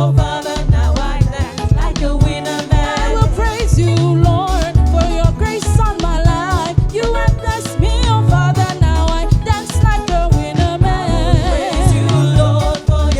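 Upbeat gospel praise song: a singer with a wavering voice over a steady drum beat and heavy bass.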